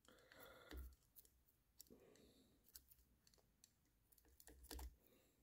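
Near silence, with a few faint scrapes and clicks of a razor knife cutting through paracord wrapped on an axe handle; the loudest come just under a second in and again near the end.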